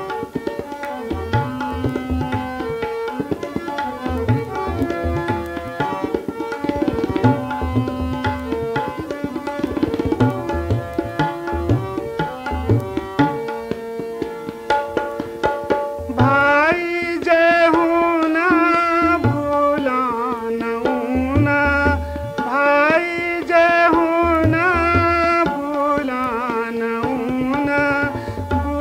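Kumaoni folk song: tabla and a sustained melodic instrument play an instrumental passage, and about sixteen seconds in a man's voice comes in singing a wavering, ornamented melody over the tabla.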